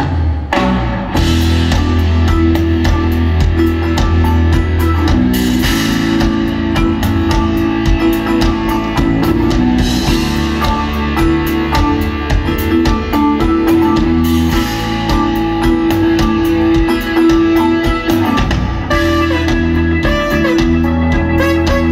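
Live band music played loud: a drum kit keeping a steady beat over sustained low bass notes, with guitar parts on top.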